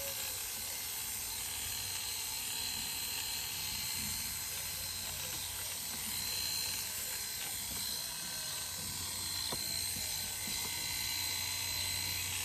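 Corded electric dog clippers with a 7FC ceramic blade running with a steady hum as they trim the hair on a dog's front leg.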